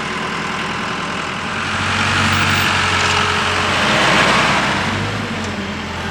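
An engine running steadily with a low hum, growing louder from about a second and a half in and easing off again near the end.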